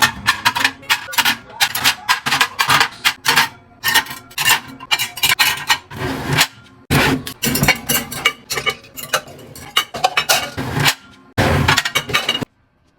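Dishes and cutlery clattering: a busy run of quick knocks and clinks, with a short pause in the middle, stopping just before the end.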